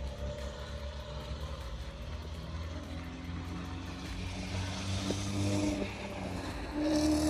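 Street traffic: a car or van driving past on the road, loudest about five seconds in.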